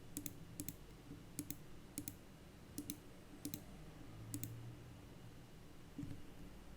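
K550 mechanical keyboard with blue clicky switches, keys pressed one at a time: about seven strokes, each a sharp double click, then a pause near the end with a soft knock.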